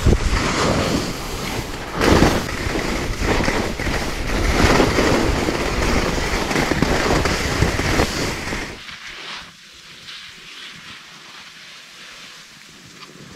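Wind rushing and buffeting over the microphone of a skier moving fast downhill, with skis hissing and scraping over the snow. About two-thirds of the way through it drops abruptly to a much quieter, steady hiss.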